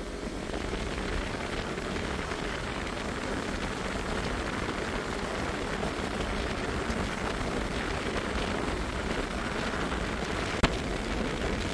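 Steady rush of wind over the microphone on a moving motorcycle, with road and engine noise beneath, swelling slightly as the bike speeds up from about 60 to 70 km/h. One sharp click about ten and a half seconds in.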